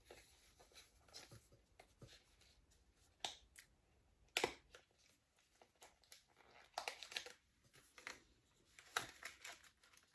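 Quiet handling noises from a small makeup compact and its blotting papers: a few scattered clicks and light paper rustles.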